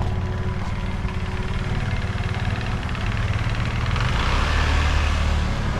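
A motor vehicle's engine running steadily, growing louder with more rushing noise about four seconds in.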